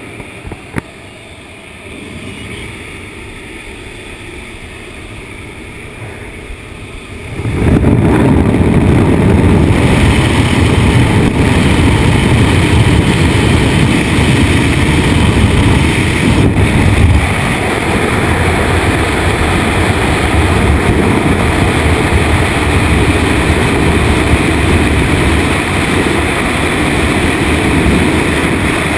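Steady engine and cabin noise inside a small jump plane. About a quarter of the way in it suddenly gives way to a loud, steady rush of wind as the door opens. The rush carries on through the exit into freefall, with wind buffeting the camera microphone.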